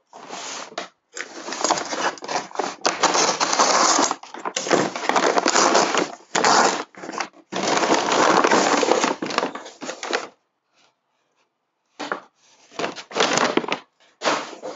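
Kraft-paper mailer envelope being opened and handled by hand: bursts of loud crinkling paper, with a pause of about a second and a half about ten seconds in.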